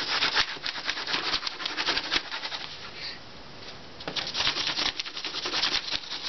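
A pencil scribbling quickly back and forth on paper, shading in a dark area. The strokes stop for about a second and a half midway, then start again.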